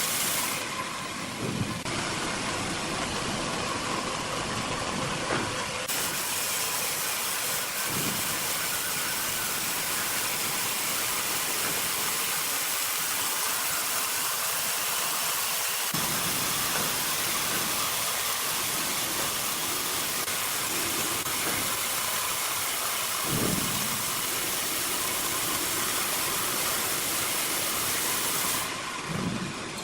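Sawmill machinery running with a loud, steady hissing noise of saw and engine, changing abruptly a few times, with a few faint low thumps.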